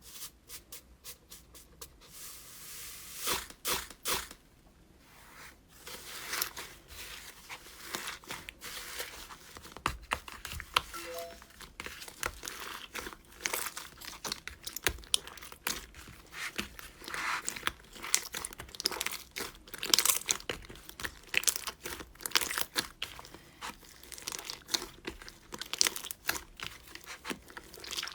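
Crunchy slime being squeezed and pressed by hand: dense, irregular crackling and popping, sparse at first and then thick and continuous from about two seconds in.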